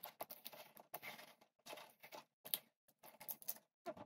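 Packaging tape being pulled off the roll and wrapped around tin cans: a run of short, irregular crackles with brief gaps, faint.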